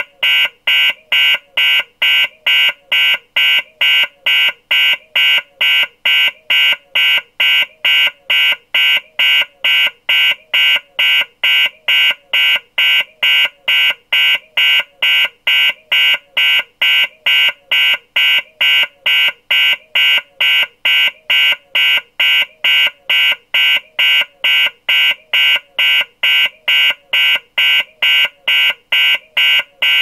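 Electronic alarm beeping: short, high-pitched beeps repeating evenly at about two a second.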